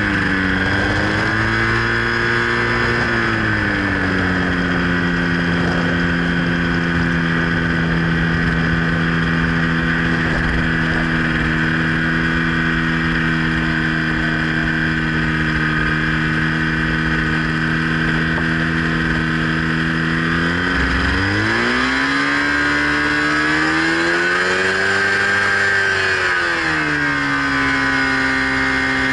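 Ultralight aerotrike engine and propeller running at low power during the landing rollout, with wind rushing past the microphone. About three quarters of the way through, the engine revs up for a few seconds, then drops back to a lower steady note near the end.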